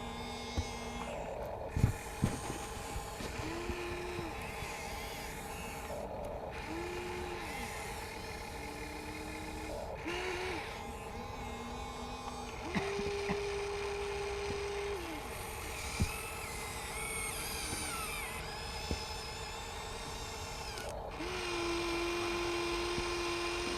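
Small electric motors of an RC excavator whining in short spells, each starting and stopping after a second or two over a steady hum, with a few sharp clicks and knocks, the loudest about two seconds in.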